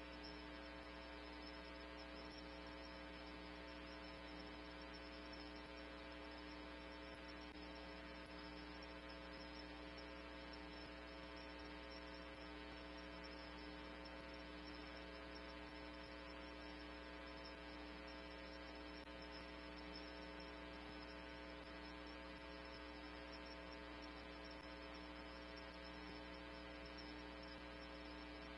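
Faint, steady electrical hum made of many fixed tones, with a light hiss, from a police scanner feed recording while the radio channel is idle between transmissions.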